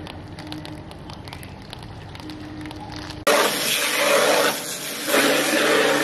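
Faint crackling ticks, then about three seconds in a loud hiss of a water jet spraying starts abruptly, dips briefly a little later and resumes, with a low steady machine hum under it.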